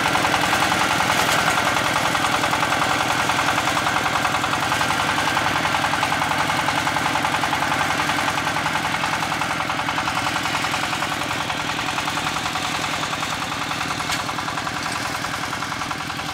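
Walking tractor's single-cylinder diesel engine running steadily with a rapid, even chug while pulling a disc plough through soil. It grows slightly quieter as the tractor moves away.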